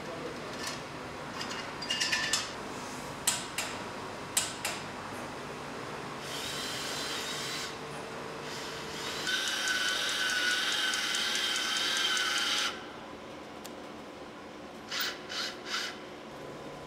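Steel circular saw blades clink a few times as they are stacked. Then a cordless power driver whines for about three seconds, and near the end it gives three short bursts, driving fasteners on the saw-blade stack.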